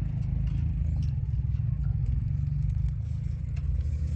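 Steady low rumble of a running engine or motor, with light scattered clicks and clatter over it.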